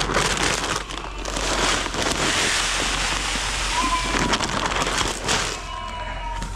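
Sheep feed of cracked corn and protein pellets pouring with a steady rattling hiss. Sheep bleat faintly about four seconds in and again near the end.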